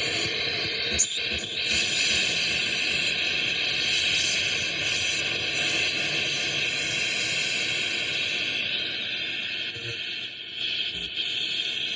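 Touch-based noise synthesizer putting out a steady wash of filtered hiss with brighter bands in it, a sharp click about a second in and a brief drop in level just after ten seconds.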